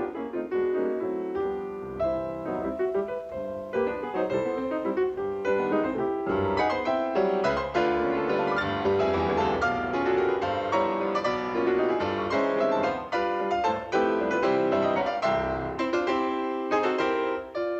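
Cartoon score music led by piano, a busy run of quick notes.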